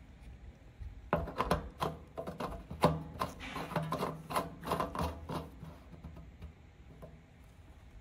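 Plastic fuel cap being screwed back onto the tank's filler neck by hand: a run of irregular clicks and scrapes from the threads, starting about a second in and fading out in the second half.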